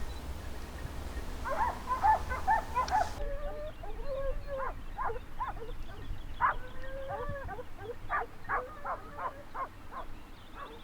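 Several hunting dogs barking and baying at once in a rapid, broken chorus, with some longer wavering howls mixed in.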